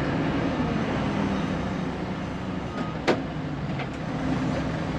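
Diesel engine of a 1999 Fermec TLK760 backhoe loader running steadily at working speed, with a single sharp clank about three seconds in.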